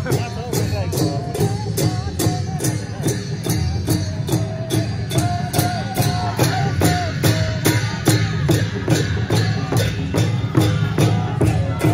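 Sakela dance music: a steady beat of drum and cymbal strokes, about three a second, with a melody carried over it.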